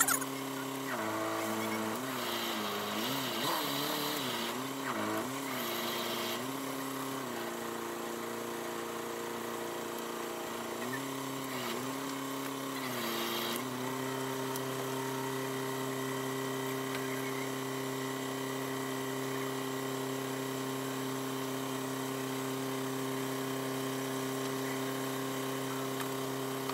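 Boat engine running while manoeuvring in to moor. Its speed rises and falls unevenly twice in the first half as the throttle is worked, then it settles to a steady, even note.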